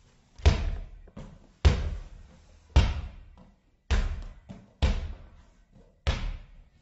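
A basketball dribbled on a hard tiled floor: six bounces at a steady pace of about one a second, each a sharp thud with a brief ring after it.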